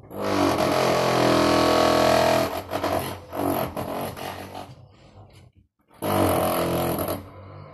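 Loud snoring: one long rasping snore of about two and a half seconds, some weaker broken breaths, then another loud snore near the end.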